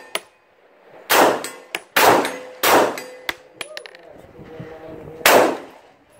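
Pistol shots ringing out under a covered range roof: three sharp reports about a second apart, then a fourth about two and a half seconds later. The first three are most likely from a Glock 19 Gen 5 firing 9mm.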